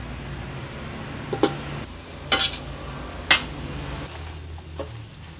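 Metal spatula scraping and knocking against an aluminium wok while water spinach is stir-fried, with three sharp strokes about a second apart over a low sizzle.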